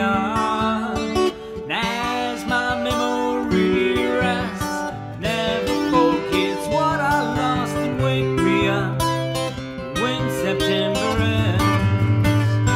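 Steel-string acoustic guitar playing alone: an instrumental passage of picked melody notes over chords, at a slow ballad pace.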